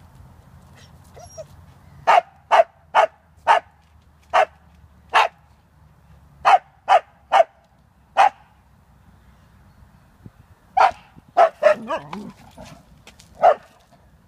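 A white spitz-type dog barking up at a tree in short, sharp barks. About ten barks come in a run from about two seconds in, and after a pause a second, more ragged run follows near the end.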